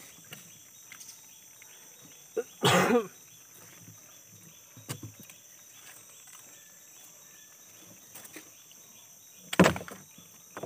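Mesh net trap being hauled over the side and shifted in a small boat: light knocks and rustles of net and frame against the hull, over a steady high drone of insects. A short, loud pitched sound comes about two and a half seconds in, and a heavy knock near the end is the loudest moment.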